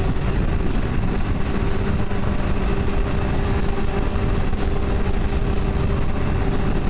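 Sport motorcycle running at a steady cruise, its engine holding an even note under heavy wind rush on the rider's microphone.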